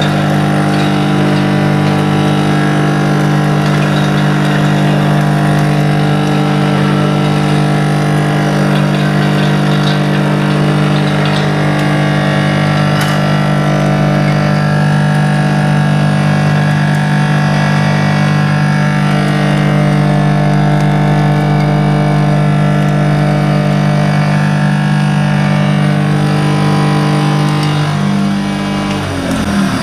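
Maksindo MKS-SYB66 juice-residue separator running steadily with a motor hum as it grinds soybeans and water into soy milk and pulp. The machine stops about a second before the end.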